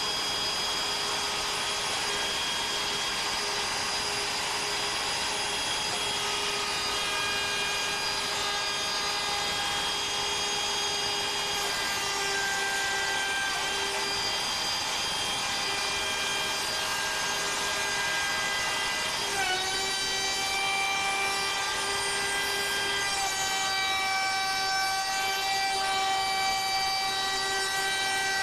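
CNC router spindle running and its bit cutting a pocket in wood: a steady machine whine over the noise of cutting. Several tones within it step to new pitches every few seconds, most clearly about 19 seconds in, as the cut moves on.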